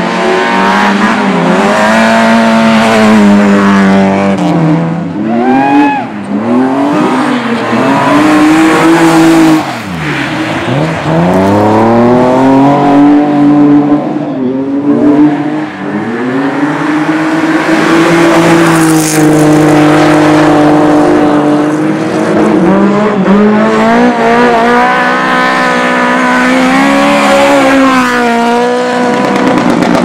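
Rally car engines being driven hard around a muddy dirt track, one car after another. The revs climb and fall again and again through gear changes and lifts, with a deep drop and climb about ten seconds in. The cars are a Lada 2107 saloon and a BMW 3 Series saloon.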